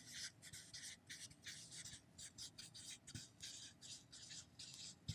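Faint scratching of a felt-tip marker writing on a paper flip chart: a quick run of short, irregular pen strokes as words are written out.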